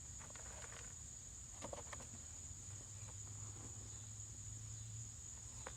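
Faint, scattered scrapes and crunches of soil being dug through in a potato bucket, over a steady high insect drone.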